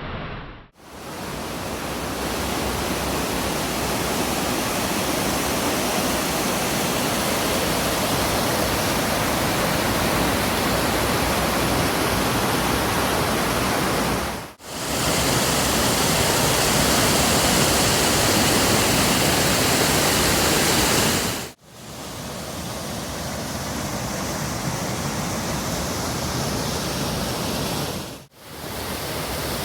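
Waterfall pouring in a steady, even rush of water noise. It is broken four times by short drops to silence where separate takes are joined.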